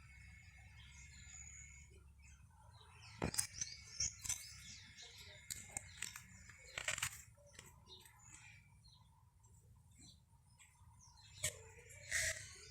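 Small birds chirping. Several short, sharp chip notes stand out over fainter high twittering: one about three seconds in, a few around four and seven seconds, and two near the end.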